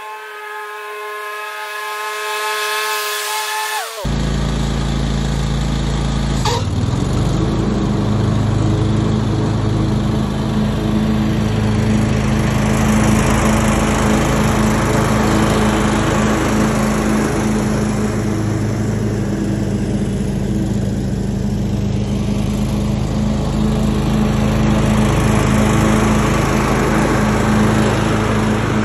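John Deere X320 lawn tractor running steadily while mowing. For the first four seconds it is a high, steady whine of several tones. Then it cuts abruptly to a louder, lower engine drone heard up close, with one brief dip in pitch about six and a half seconds in.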